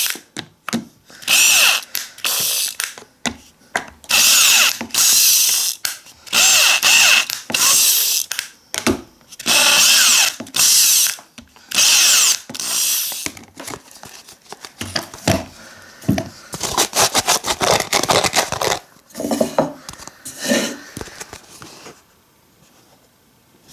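Power drill running in repeated short bursts, about a second each, as the bit bores one hole after another through the thin plastic base of a clear food container. In the second half the bursts give way to a quieter run of rapid clicking and rattling.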